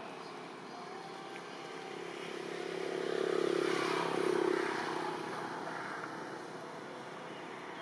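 A passing engine: a low hum swells about three seconds in and fades away again over a steady background hiss.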